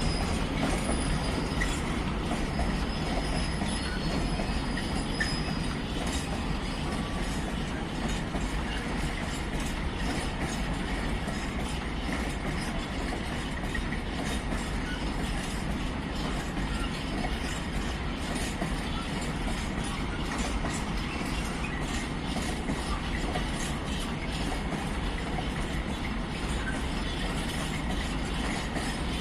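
A train running along the rails at a station, with steady wheel rumble and clatter over the track, and a few thin high wheel squeals in the first six seconds.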